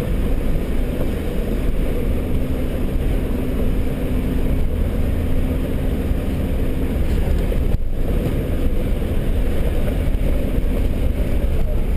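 Land Rover 4x4 driving along a rough dirt track, heard from inside the cabin: a steady engine hum with road and body rumble, and one sharp knock a little under eight seconds in.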